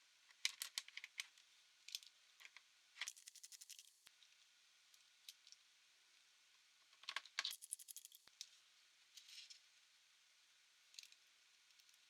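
Small sharp clicks and light rattles of a laptop's plastic and metal parts and screws being handled during disassembly, with two short runs of rapid ticking, like a ratchet or a part sliding over a ridged edge.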